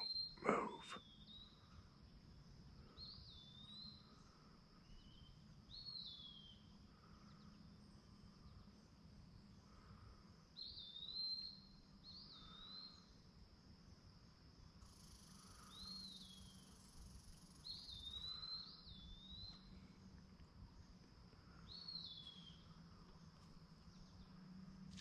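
Wood ducks calling: faint, thin whistles that rise and then dip, repeated every two or three seconds, over a steady insect drone. Two sharp knocks in the first second.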